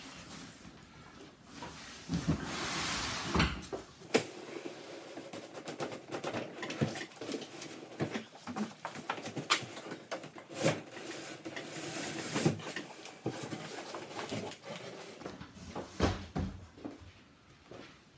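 Large cardboard shipping boxes being handled and pulled apart: a long scraping rub of cardboard on cardboard about two seconds in, then many knocks and clatters as the outer box is lifted off the inner box.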